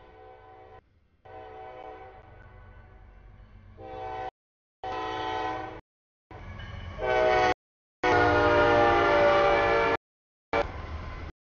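A CSX freight locomotive's air horn sounds the grade-crossing signal as the train approaches: repeated blasts with several tones together, over a low engine rumble. The blasts grow louder, and the longest and loudest comes about eight seconds in as the locomotive reaches the crossing. The sound cuts out completely for short moments several times.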